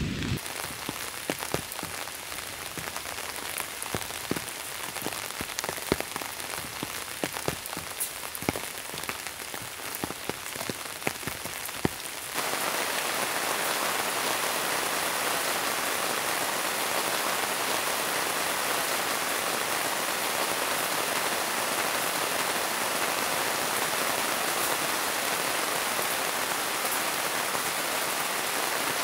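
Heavy rain falling, with many sharp separate drops standing out of the hiss at first. About twelve seconds in it changes abruptly to a louder, dense, steady downpour drumming on the Glaumbaer M-01 shelter tent's fabric.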